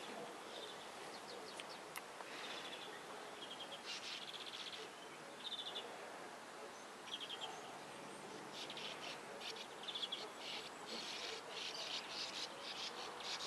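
Sand martins at their burrow colony giving dry, rasping twittering calls in short buzzy bursts. The calls are scattered at first, then become more frequent and overlapping from about halfway through.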